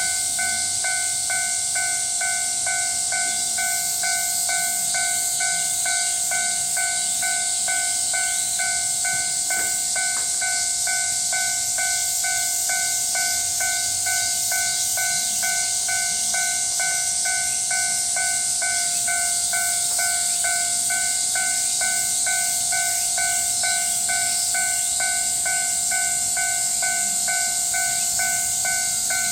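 Japanese level-crossing warning bell ringing steadily, a repeating electronic tone, over a steady high hiss.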